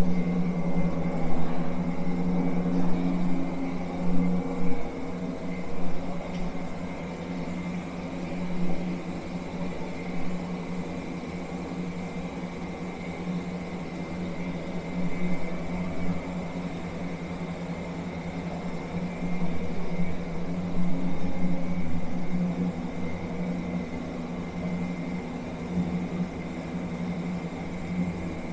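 A steady low mechanical hum, with irregular louder moments during the first few seconds.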